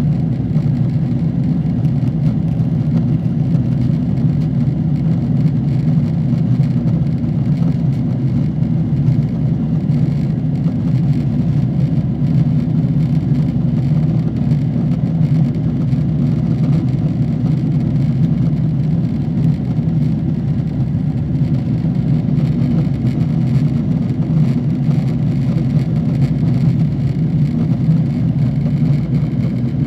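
Cabin noise of a Boeing 777-300ER in flight: a steady low drone of its GE90 turbofan engines and the airflow over the fuselage, heard from a window seat.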